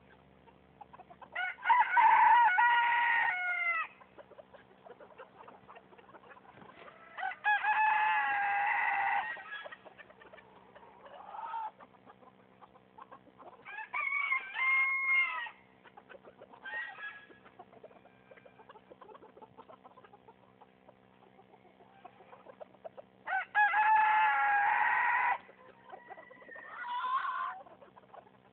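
Chicken calling: four long, loud calls of about two seconds each, with a few shorter clucks between them, over a faint steady hum.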